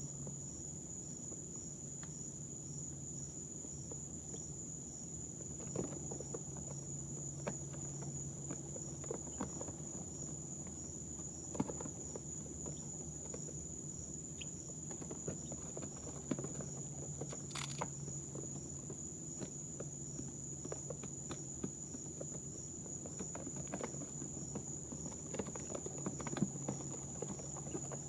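A steady high-pitched electrical whine over a low hum, with scattered soft scratches and taps from baby chicks moving about and pecking in their bedding.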